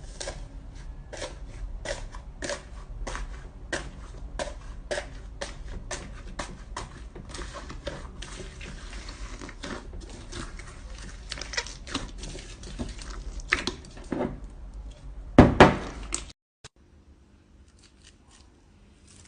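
Slime being squeezed and worked by hand: irregular sticky clicks and small pops, several a second, with a louder squelch about fifteen seconds in. It then stops abruptly, leaving only a faint low hum.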